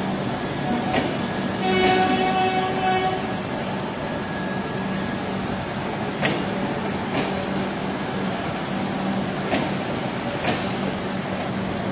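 Coaches of the Howrah Rajdhani Express rolling slowly past at low speed, their wheels clicking over rail joints every second or two over a steady low hum. A brief horn blast sounds about two seconds in.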